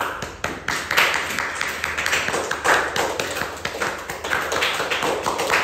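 A group of people clapping: applause made of many quick, overlapping hand claps that keep up at an even pace.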